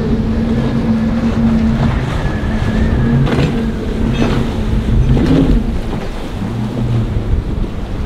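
Motorboat engine running with a steady hum, under heavy wind buffeting the microphone.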